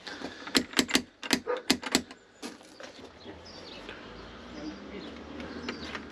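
Knocking at a front door: about six sharp raps in quick succession within a second and a half, then quiet waiting.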